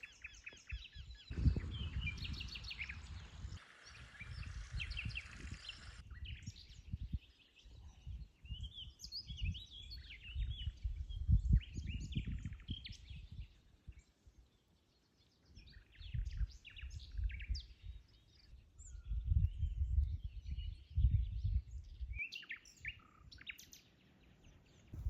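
Several birds chirping and singing in short, overlapping calls, over irregular low rumbling that swells loudest about a second in, around the middle and near the end.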